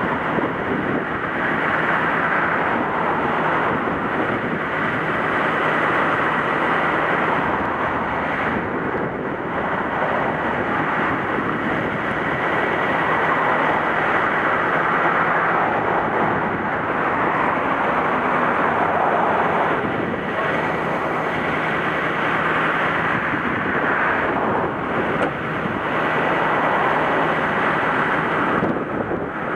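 Wind buffeting the microphone over breaking surf, with the tow truck's engine humming steadily underneath as it slowly winches the pickup up the slope.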